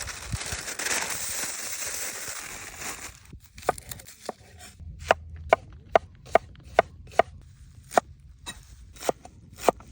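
Rustling for about three seconds, then a knife chopping on a wooden board: about a dozen sharp knocks, roughly two a second and unevenly spaced.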